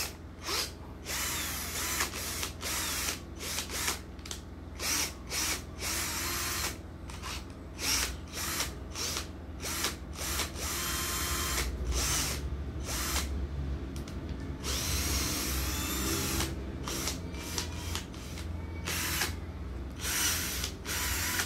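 J.C.K (JC Kawasaki) 2112C cordless drill motor running in reverse in many short trigger bursts, with a few longer runs of a second or so, while the keyless chuck is gripped by hand to loosen its jaws.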